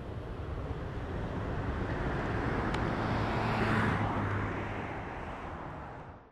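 A motor vehicle passing by. Its engine and tyre noise builds to a peak about four seconds in, then fades.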